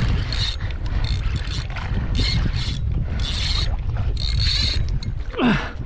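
Saltwater spinning reel cranked in short spells, whirring about once a second with brief pauses, as a heavy fish is winched up off the bottom on a jig. Low wind and water noise runs under it, and near the end there is a brief sound that falls steeply in pitch.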